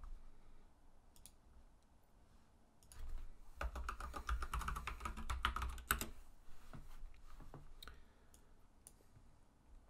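Typing on a computer keyboard: a quick run of keystrokes lasting about three seconds, with a few single clicks before and after.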